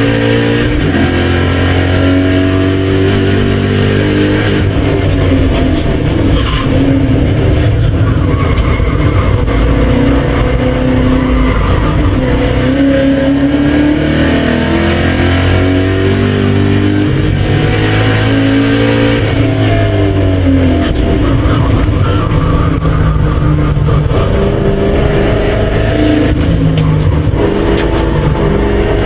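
BMW M5 E39's S62 V8 driven hard on a racetrack, the engine note climbing and dropping over and over as the car accelerates, shifts and brakes.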